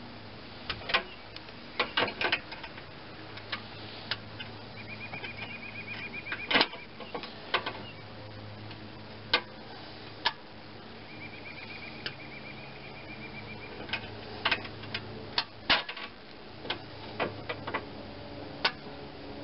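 Irregular clicks and knocks of hands and tools handling the steel mower deck, over a low steady hum.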